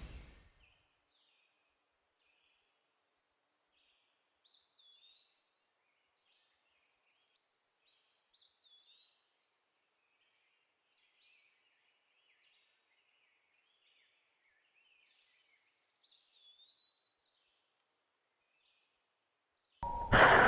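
Faint birdsong: scattered chirps and a whistled phrase that rises and falls, repeated several times. Near the end a sudden loud noise cuts in.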